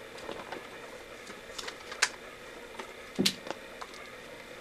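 Scattered light clicks and taps from paper cutout puppets on wooden sticks being handled against a paper backdrop, with a sharper click about two seconds in and a dull knock a little after three seconds.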